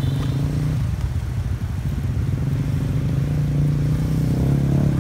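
Motorbike engine running close by with a steady low hum that grows a little louder toward the end, amid street traffic.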